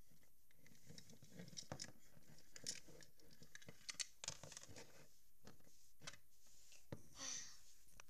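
Handling noise from hands moving small plastic Littlest Pet Shop toys and the handheld camera: scattered light clicks, taps and rustles, with a longer rustle about seven seconds in.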